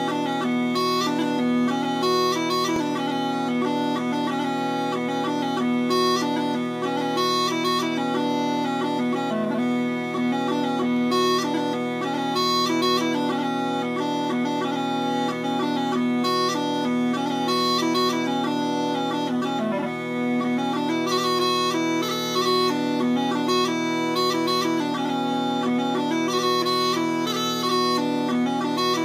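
Kinnear "A" smallpipes playing a dance tune: steady drones tuned to B sound under a quick chanter melody, the chanter retuned, mostly, to play against the B drones.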